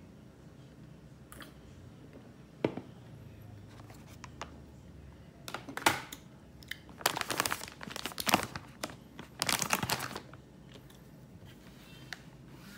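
A single knock, then several bursts of crinkling as a paper napkin is crumpled and handled.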